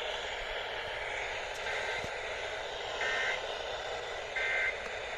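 Steady hiss of a weather-radio receiver, with three short warbling bursts of EAS SAME digital code about a second apart. Bursts this short are the end-of-message (NNNN) signal.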